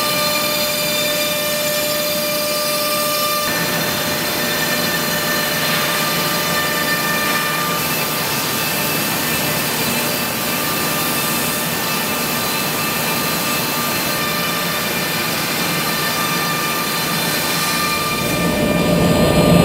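Homag BAZ 32/50K Optimat CNC machining centre routing a wood panel: a steady, dense whir of the router spindle cutting, with steady whining tones that shift a few times. It grows louder near the end.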